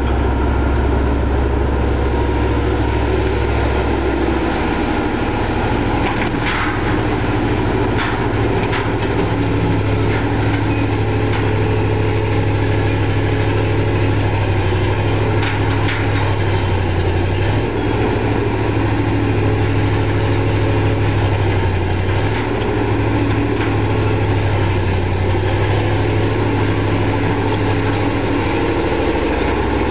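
Dragline excavator's engine running steadily under working load as the machine swings its boom and hoists the bucket. Its low drone shifts in pitch about four seconds in and again about two-thirds of the way through, with a few faint knocks.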